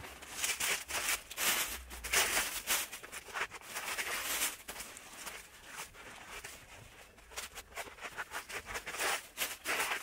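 Irregular rustling and crinkling of paper scraps and a plastic bin bag as debris from a mouse nest is gathered by gloved hands and dropped into the bag, easing off for a couple of seconds in the middle.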